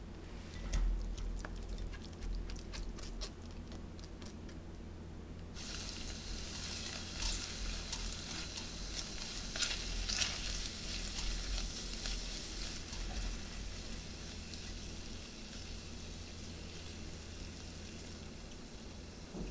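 Canned corn kernels tipped from a metal mesh strainer into a pan with a few light taps and clicks; about five seconds in, a steady sizzle starts as the kernels stir-fry, with a silicone spatula scraping and stirring through them.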